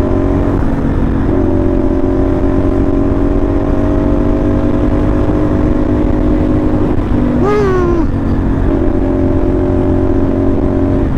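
CFMoto NK450's 270-degree-crank parallel-twin engine running at a steady cruising speed through a loud SC Project-style slip-on exhaust, with wind rushing over the microphone.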